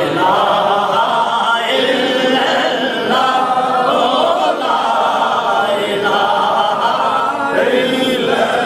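A gathering of men chanting a naat refrain together in unison, unaccompanied, in repeated sung phrases.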